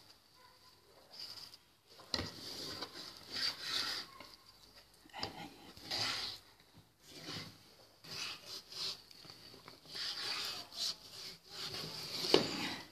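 Long kitchen knife cutting through raw pork back fat and slicing the rind away from it on a wooden cutting board: irregular rasping strokes of the blade through the fat and against the wood, with one louder stroke near the end.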